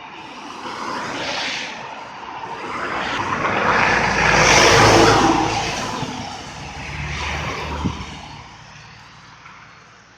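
Road vehicles passing by: a loud pass swells and fades around the middle, with smaller passes before and after it and a single sharp click near the end of the last one.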